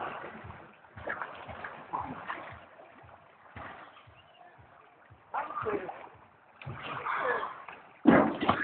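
People swimming and thrashing in a pool, water splashing and sloshing in irregular bursts, with voices calling out between them; the loudest burst comes near the end.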